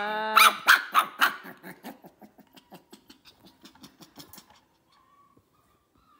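Puppy barking in short, sharp yaps, opening with one drawn-out whining yelp. The barks grow fainter and stop after about four and a half seconds.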